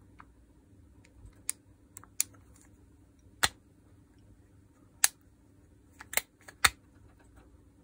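About ten sharp metallic clicks at irregular intervals, the loudest in the second half: the Makita DDF486 drill's ball-type torque clutch being worked by hand, its steel balls skipping over the detents.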